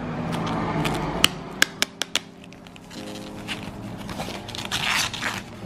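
Thin white tissue-like packaging wrap rustling and crinkling as it is peeled open and unfolded by hand, with a quick run of four or five sharp crackles a second or two in and a louder rustle near the end.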